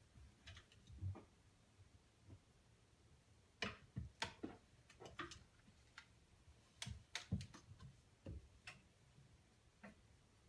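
Faint, irregular clicks and taps of a cat's claws and paws on a wooden floor as it rolls and plays, in two loose clusters, otherwise near silence.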